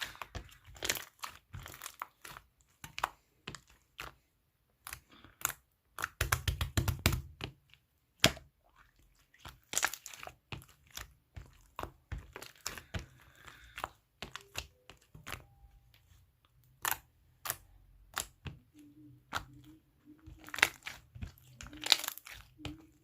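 Slime being handled by hand: irregular sharp clicks and pops as it is squeezed and folded, with a dense run of crackling about six seconds in and another near the end.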